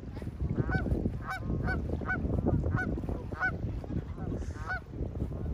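A flock of Canada geese honking, many short calls following one another every fraction of a second, over a steady low rumble.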